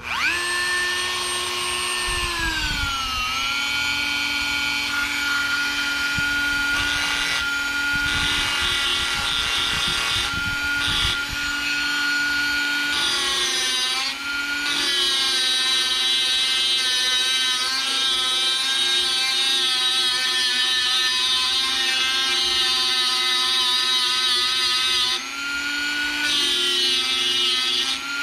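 Dremel rotary tool with a small grinding wheel, its motor whining steadily as it grinds down the blower's intake. The pitch drops about two seconds in as the wheel bites and settles under load, shifting again around the middle and briefly rising near the end when the pressure eases.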